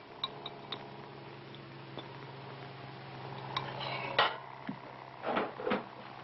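Light clinks and clatter of dishes and cutlery, a few at first and then louder ones in the second half, over a steady low hum.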